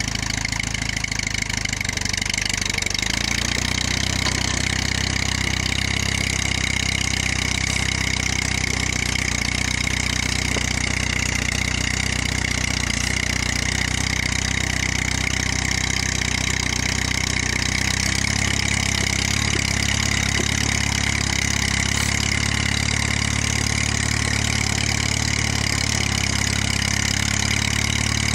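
The four-cylinder engine of a 1946 Case VAC tractor running steadily as the tractor drives along, its note shifting about three seconds in.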